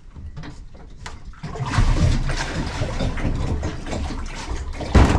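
Plastic kayak hull scraping and grinding over gravel in a shallow riffle, with water rushing around it; a hard knock about five seconds in.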